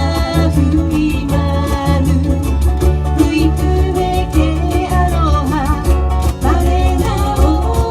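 A Hawaiian song sung with strummed ukulele accompaniment and a steady bass line.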